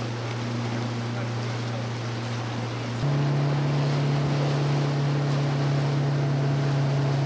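Zodiac inflatable boat's outboard motor running steadily under way, a constant low hum over wind and water hiss. About three seconds in the motor becomes louder and a little higher in pitch.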